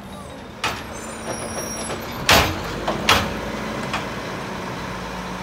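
Mack LEU garbage truck running steadily, with a few sudden sharp noises over the engine; the loudest comes about two seconds in.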